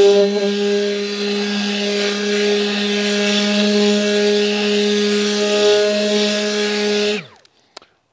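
Milwaukee M12 orbital detail sander running steadily, its motor humming under the rasp of an 80-grit mesh sanding sheet on the edge of a pine board. It winds down with a falling pitch and stops about seven seconds in.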